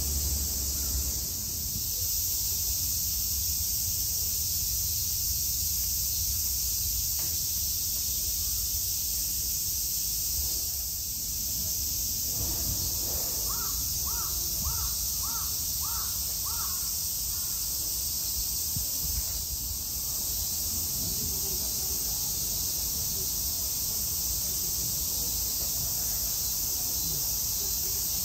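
A crow caws six times in quick succession, about two calls a second, near the middle, over a steady high-pitched drone of insects.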